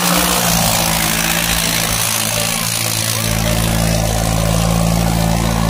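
John Deere 5210 tractor's three-cylinder diesel engine running steadily under heavy load as it drags two disc harrows through the soil. A deeper rumble comes in about three seconds in.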